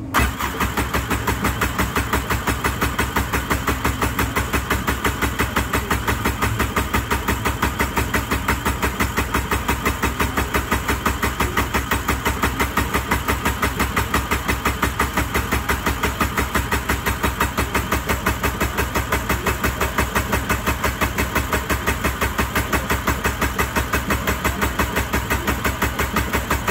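Jet ski engine turned over by its electric starter without firing: a steady, even chug of compression pulses, several a second, that starts abruptly and never catches. The engine will not start.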